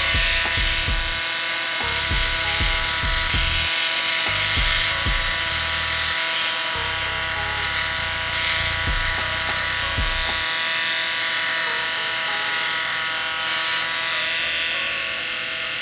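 1950s Remington Rollectric electric shaver running steadily with a buzzing hum while shaving a mustache, its cutters moving back and forth over the hair. A low rumble comes and goes until about ten seconds in.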